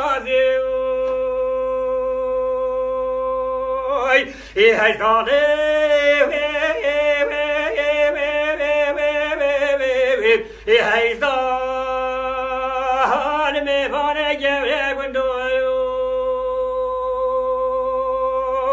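Unaccompanied male voice singing a Kurdish dengbêj song: long held notes broken by quick wavering, bending ornaments, with short breaths about four and ten seconds in.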